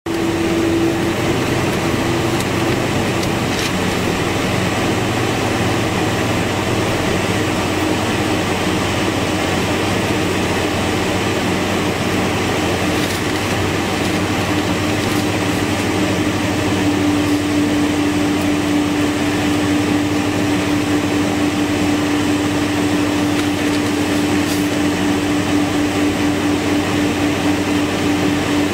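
Boeing 747-400 cabin noise on the ground: a steady jet engine and air-conditioning hum with a steady whine that grows stronger a little past halfway.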